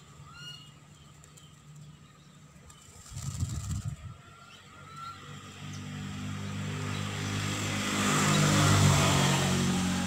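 A motor vehicle passes, its engine hum and road noise swelling to a peak about nine seconds in and then easing off. There is a short high bird chirp near the start and a brief rustling burst about three seconds in.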